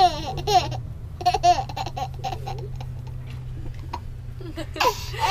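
Baby laughing and babbling while being tickled, in bursts through the first couple of seconds and again louder near the end. A steady low hum runs underneath.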